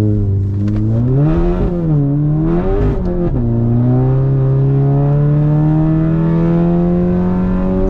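Car engine heard from inside the cabin while driven hard on an autocross course: revs rise and fall with throttle, drop sharply on an upshift about three seconds in, then climb steadily as the car pulls through the next gear.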